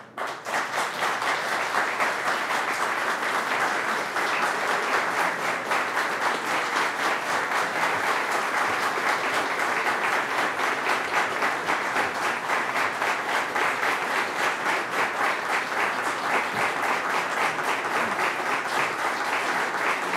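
Audience applauding: many people clapping in a dense, steady patter that breaks out abruptly and holds at an even level.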